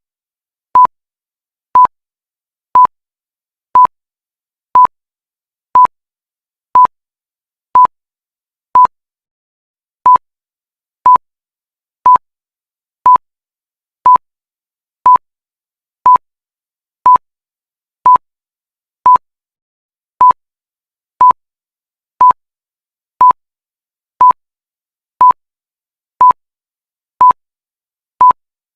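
Countdown timer sound effect: a short, high beep of a single pitch once every second, ticking off each second of the count.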